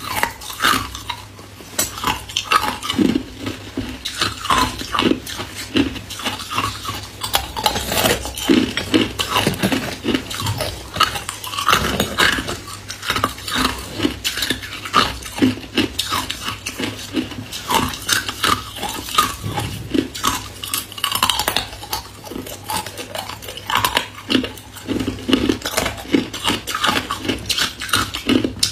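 Ice cubes being bitten and chewed: a rapid, irregular run of crunches and cracks that keeps going throughout.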